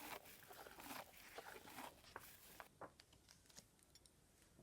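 Very faint rustling and crinkling with soft clicks, dying away about two and a half seconds in to a few isolated small clicks.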